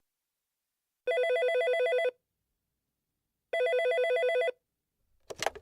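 Electronic telephone ringing: two one-second trilling rings separated by a pause, then a short click near the end.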